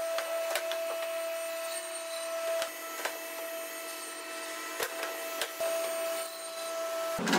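Sliding table saw running with a steady hum, with light knocks and clicks as a wooden beam is slid along the carriage. Near the end a louder, rougher noise comes in as the cut begins.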